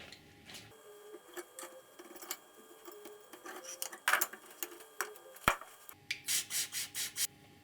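Hand work on small metal parts: scattered clicks and scraping with one sharp knock, then about six quick, even back-and-forth rubbing strokes near the end, like sanding or filing.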